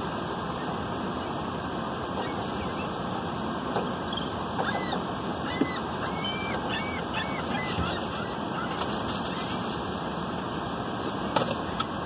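Gulls calling: scattered short arched cries, most of them in the middle of the stretch, over a steady background hiss.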